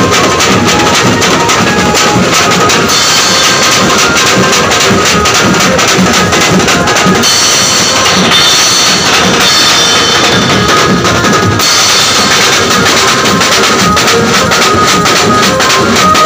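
Banjo party band's percussion playing loud and fast: dhol drums, tom-toms and cymbals beaten in a dense, driving rhythm with no break.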